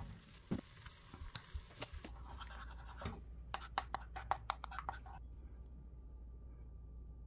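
Wooden spoon scraping and clicking against a frying pan while a thick sauce is stirred, with a quick run of sharp clicks at about five a second past the middle, then only a faint steady hum.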